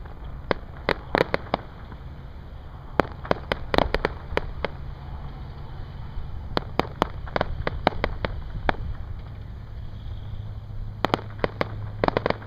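Distant fireworks display: sharp cracks and pops from bursting shells come in quick clusters every few seconds, over a low steady rumble.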